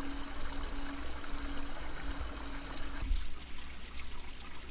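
Running water of a stream trickling and flowing steadily, the sound changing abruptly about three seconds in.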